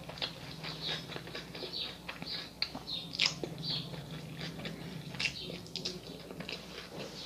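Close-miked chewing with the mouth closed: a steady run of small wet clicks and smacks, a few sharper ones about three and five seconds in, over a faint low hum.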